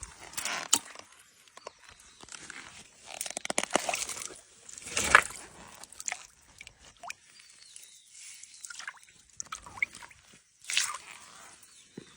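Hands splashing and stirring in shallow stream water and shifting stones, in irregular bursts with a few sharp knocks, while searching under rocks for crabs.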